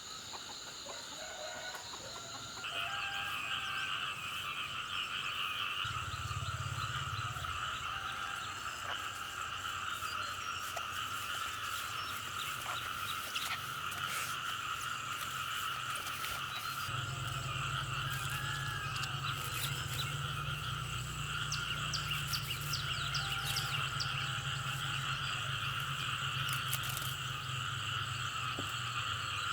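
A dense chorus of frogs calling continuously, growing louder about three seconds in, with a low steady hum underneath.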